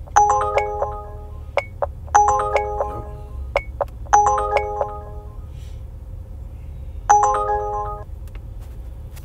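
Lyft driver app ride-request alert: a short run of chime tones that repeats about every two seconds, four times in all, with small ticks between, signalling an incoming ride request waiting to be accepted. A low steady rumble runs underneath.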